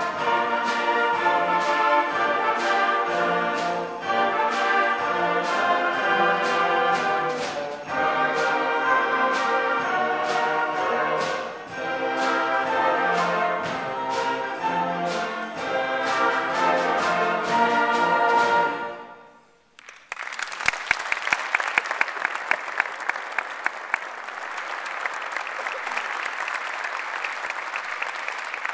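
School concert band of woodwinds and brass playing a piece that ends about two-thirds of the way through. After a brief pause, the audience applauds.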